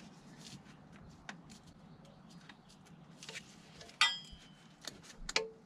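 Faint clicks and taps of gloved hands working a small electrical connector loose, with a sharper click that rings briefly about four seconds in and a few more small clicks just after.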